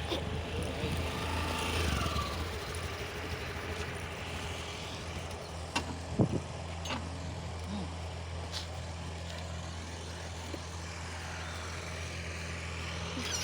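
Water pump motor running with a steady low hum, with a few short clicks about six seconds in.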